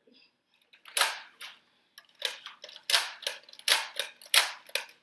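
Plastic clicks and snaps of Nerf blasters being cocked and dry-fired with no darts loaded: one click about a second in, then a quick run of about three a second.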